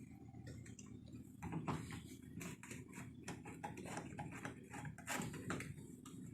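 Irregular light clicks and knocks, a few a second, over a steady low hum.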